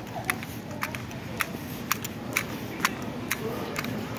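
Footsteps of a person walking briskly across a concrete station platform, about two sharp steps a second, over a low background hum.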